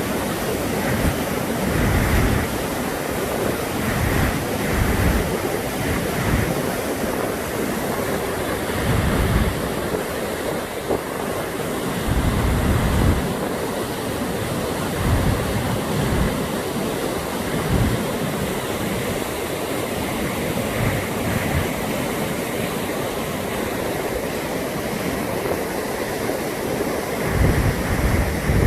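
Brúará river water rushing steadily over its falls, with gusts of wind buffeting the microphone several times.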